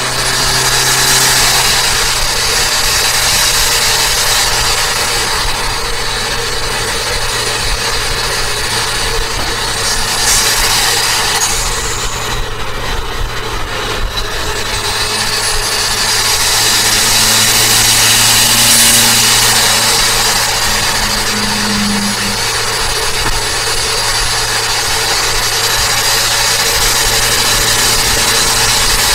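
Turbocharged Toyota Avanza being driven, heard from inside the car: steady engine and road noise under a high whine that slowly rises and falls several times.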